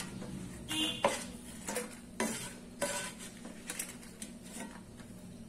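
Wooden spatula scraping and knocking in a nonstick frying pan as fried dried red chillies are lifted out onto a steel plate: irregular knocks and scrapes, with a faint sizzle of hot oil underneath.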